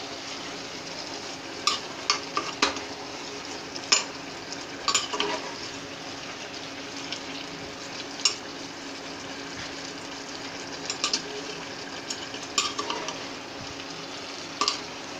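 A spatula stirring potato and tinda pieces in an open pressure cooker, knocking and scraping against the pot at irregular intervals over a steady sizzle of the vegetables cooking.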